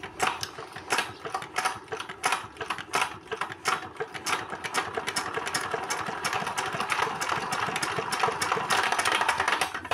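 R180 single-cylinder diesel being hand-cranked with a harsh, rapid "klak klak klak" clatter of knocks inside the engine, getting quicker and steadier about halfway through and stopping near the end. The knocking comes from a cracked crank boss and loose, worn pins that let the timing gear shift.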